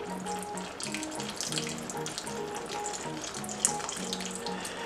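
Background music with short held notes, over the crackling sizzle and hiss of chicken, pineapple and peppers cooking in a stainless steel pot.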